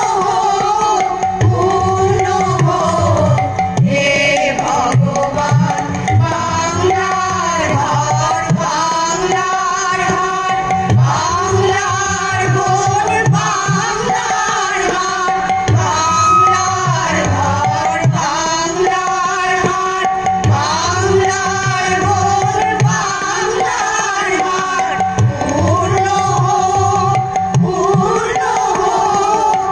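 A women's chorus singing a song together over amplified harmonium and drum accompaniment, with a steady drum rhythm throughout.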